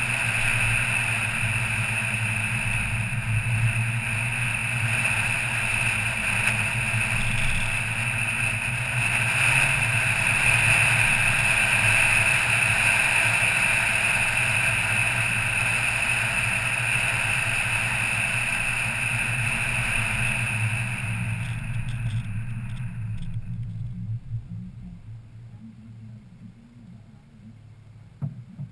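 A car driving along at road speed, with a steady hum of engine, tyre and wind noise. The noise fades away over the last few seconds as the car slows to a stop.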